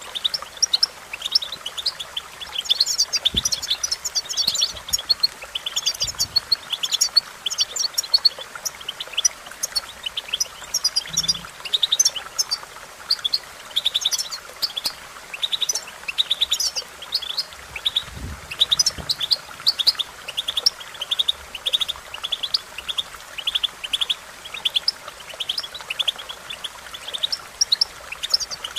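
European goldfinch singing: a fast, continuous twittering of short high chirps and trills.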